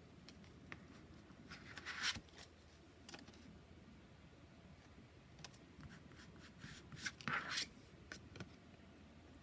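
Oracle cards being handled: light taps and clicks, with two short sliding swishes of card on card, one about two seconds in and a longer one around seven seconds in.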